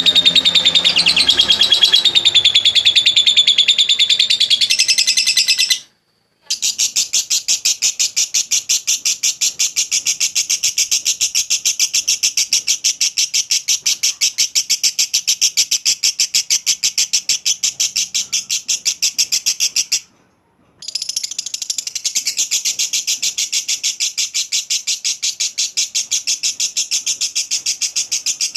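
Lovebird 'ngekek' call: a long, fast, even chatter of sharp repeated notes, many a second. It breaks off briefly twice and starts again.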